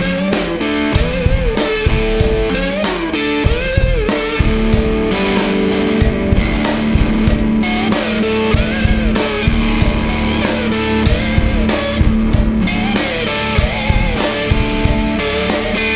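A blues-rock band plays an electric guitar over a drum kit, the guitar's notes bending and sliding while the drums keep a steady beat of about two hits a second.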